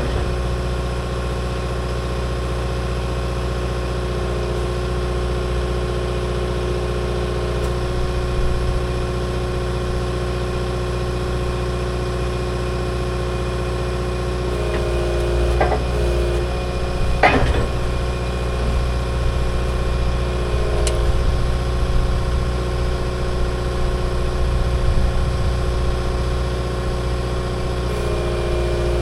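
Skid steer engine running at a steady speed while it applies pressure, with two sharp knocks a little past halfway.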